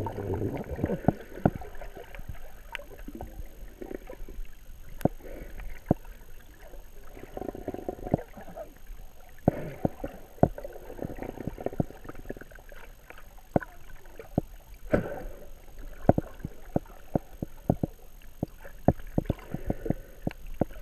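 Muffled underwater sound of water swirling and sloshing around a submerged camera, swelling and fading, with many irregular sharp clicks and knocks.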